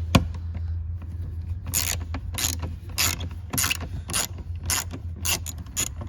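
Ratchet with a 7 mm socket on an extension clicking in short strokes, about two a second from about two seconds in, as a panel screw is backed out.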